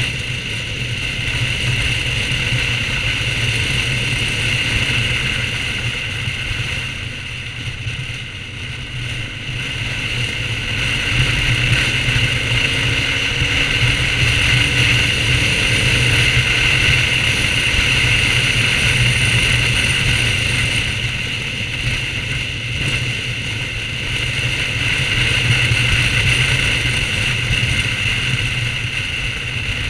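BMW R1200GS flat-twin motorcycle being ridden at road speed, its engine running steadily under road and wind noise. The level rises and falls slowly, with no sudden events.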